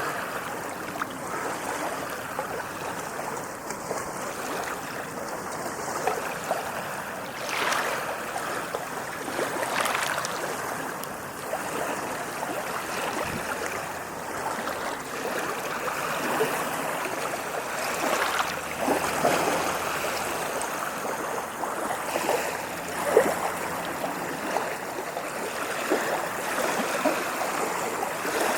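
Ocean waves washing against a shore: a continuous rush of water with a few louder splashes now and then.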